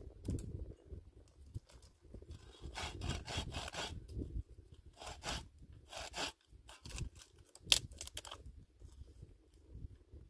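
Wood being sawn by hand: several bursts of quick rasping strokes from about two seconds in until shortly past eight seconds.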